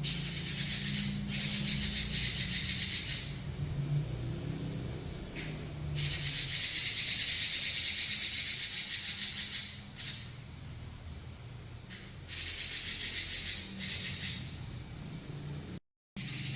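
Pekin robin singing long, fast trills of rapidly repeated high notes in several bouts, the longest about four seconds in the middle, with a low steady hum underneath.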